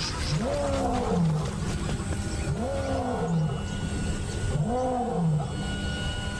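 Male lion roaring: three deep calls about two seconds apart, each rising and then falling in pitch. It is a pride male's territorial roar proclaiming ownership.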